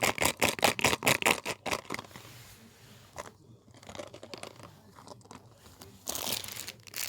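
Blind box packaging being torn open and handled, with a quick run of ripping sounds over the first two seconds, then scattered small crinkles, and a louder rustle of crumpling near the end.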